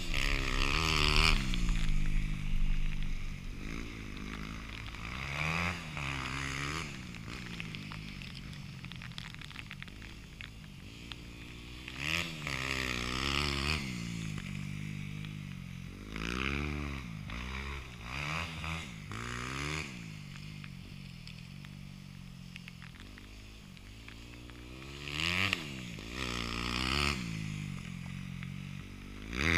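Dirt bike engine revving up and down over and over as it rides, each rev climbing then dropping back. It swells louder several times and fades between them.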